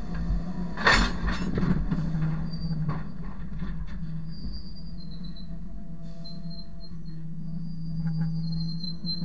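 Train wheels rolling on the rails directly overhead: a loud clatter as a wheelset passes about a second in, then a steady low rumble with a thin high wheel squeal coming and going.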